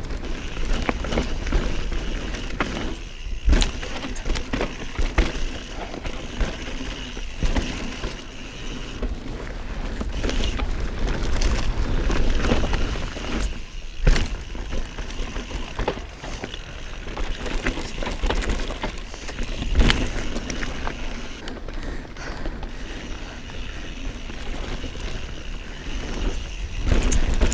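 Mountain bike riding fast down dry, sandy forest singletrack: tyres rolling over loose dirt with wind buffeting the camera microphone, and the bike rattling and clattering over bumps, with several sharper knocks.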